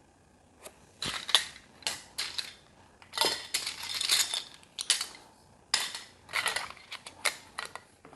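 Loose plastic LEGO pieces clattering and rattling as they are sorted by hand. Several bursts of clicks start about a second in.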